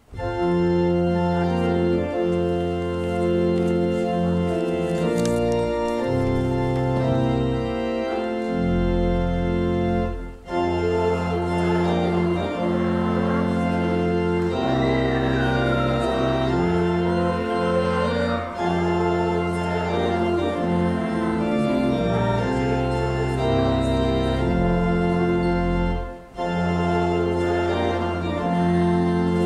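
Church pipe organ playing slow music in long held chords, breaking off briefly between phrases about ten seconds in and again near the end.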